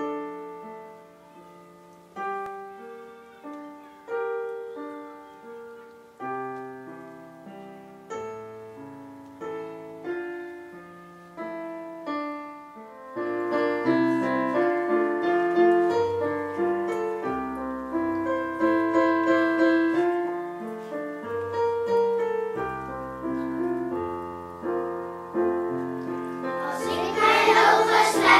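Piano introduction to a children's song: sparse chords struck about every two seconds at first, then a fuller accompaniment with bass notes from about halfway. A children's choir comes in singing near the end.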